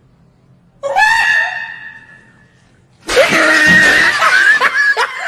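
Shrieking, screaming laughter. One long, high, held shriek comes about a second in. From about three seconds in it turns to loud continuous shrieking that breaks into short repeated bursts.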